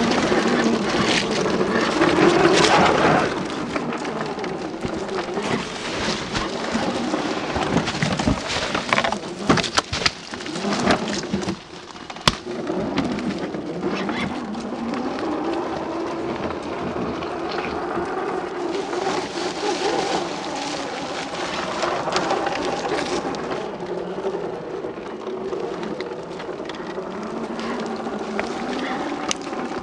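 Small electric RC scale truck's 55-turn brushed motor and gears whining, the pitch rising and falling with the throttle, while the tyres crackle over pine needles and twigs. A run of sharp clicks and knocks comes about ten seconds in as it climbs over a log.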